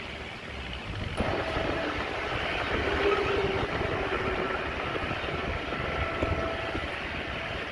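Heavy earthmoving machinery working. About a second in it gets suddenly louder, with a rough rumble and thin squealing tones over it.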